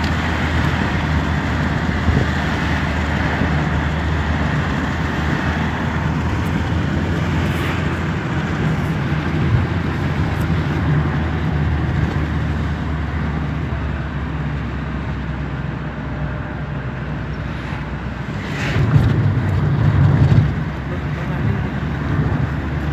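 Car cabin interior while driving: steady engine hum under road and wind noise. The sound swells louder for about two seconds near the end.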